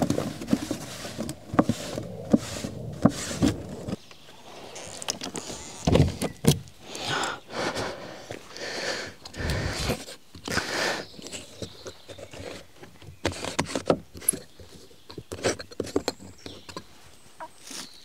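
Irregular knocks, scrapes and shuffling footsteps of someone moving about and handling things, with several short swishing, rubbing sounds near the middle.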